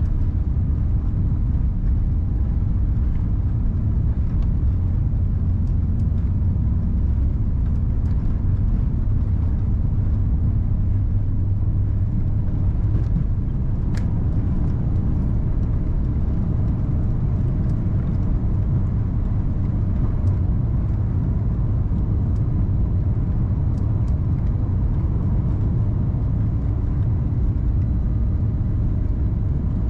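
Cabin noise of an Airbus A350-900 at take-off thrust, heard from a window seat beside its Rolls-Royce Trent XWB engine: a steady, deep rumble through the take-off roll and lift-off, with a single faint click about halfway through.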